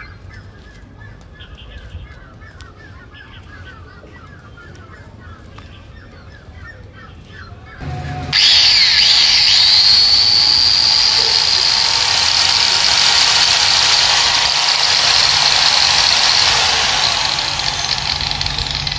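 Rebuilt 5-inch angle grinder, with a new armature and bearings and a freshly greased gearbox, switched on about eight seconds in and running free with a loud, steady, high whine. It runs smoothly, with no rattle, showing the repair is good; the level eases somewhat near the end.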